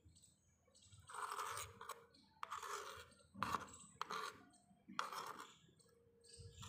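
A metal spoon scraping and scooping thick vegetable curry in a small clay pot: a handful of short, separate scrapes.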